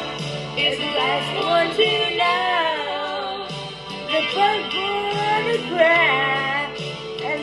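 A woman singing a slow country ballad over a recorded instrumental backing track.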